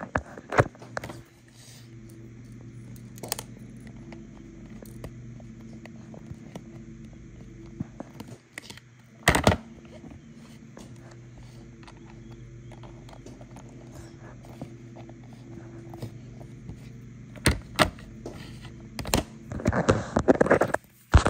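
Plastic toy teeth model and braces chain handled on a plastic tray: scattered clicks and knocks, one louder knock about nine seconds in, and a burst of handling and rattling near the end, over a steady low hum.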